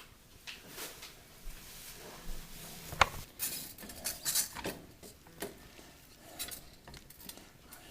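Scattered clinks and knocks of kitchen utensils against a pot and dishes, with one sharp knock about three seconds in.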